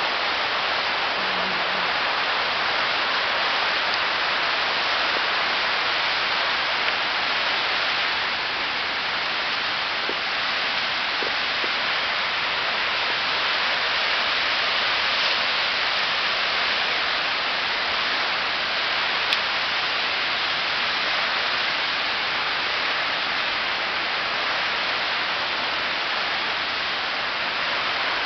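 A steady, even rush of water that stays level with no breaks.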